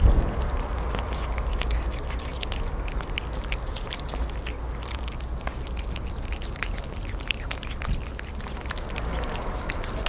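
Kittens chewing and smacking on chunks of wet cat food close to the microphone: a fast, irregular run of small wet clicks, over a steady low rumble, with a louder knock right at the start.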